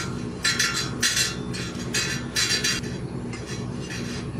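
Short, irregular metal scrapes and clinks from a bicycle's threaded headset as the locknut and washer are worked loose on the steering tube, about eight in four seconds.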